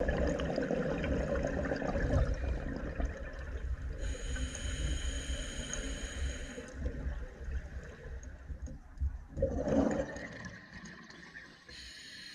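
Scuba diver breathing through a regulator underwater, the exhaled air bubbling and gurgling in irregular surges, with a louder gush about ten seconds in. A faint steady high whine sounds for a couple of seconds near the middle.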